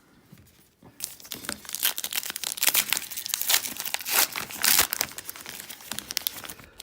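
Plastic trading-card pack wrapper being torn open and crumpled by hand, a dense, uneven crinkling and crackling that starts about a second in.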